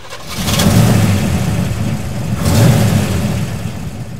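Car engine revving twice, about two seconds apart, each rev swelling up and then easing off.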